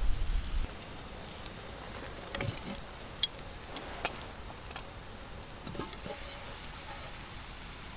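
A skillet of bacon, egg and hashbrowns sizzling with a steady hiss as its lid is lifted off with a pot lifter: a low bump at the start, then scattered light clicks and pops.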